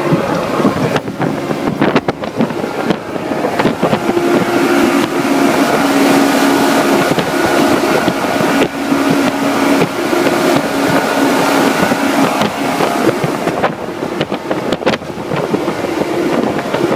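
Boat motor running steadily with a constant hum, with wind noise on the microphone.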